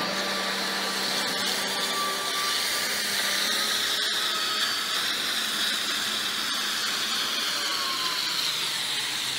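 Excavator running with a steady mechanical whine over a continuous hiss of water pouring from its clamshell grab. The whine drops slightly in pitch near the end.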